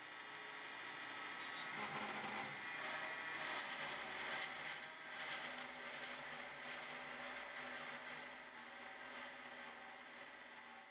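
Spindle of a Lobo CNC milling machine running with a steady whine as a small end mill cuts into sheet aluminium. A scraping cutting noise comes in about a second and a half in, is loudest for the next few seconds, then eases.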